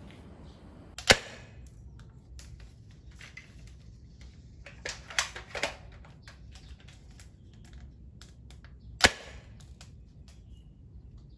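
Two sharp shots from a D-Cobra M416 spring airsoft rifle, about a second in and again about nine seconds in, with a quick run of three or four clicks around five seconds in.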